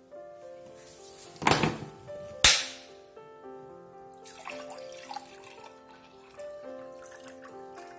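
Water pouring from a large plastic bottle into a glass mug, starting about four seconds in, over background music with a steady melody. Before the pour, two loud sharp knocks come about a second apart.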